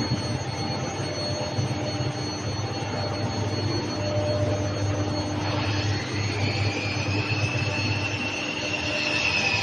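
Steady industrial machinery noise: a broad rush over a low hum, with a whine that comes in about six seconds in and slowly rises in pitch.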